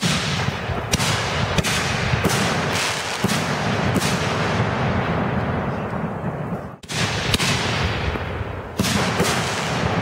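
Aerial fireworks going off in a dense string of sharp bangs, several close together, with rumbling echoes between them; the barrage drops away briefly about seven seconds in, then starts again.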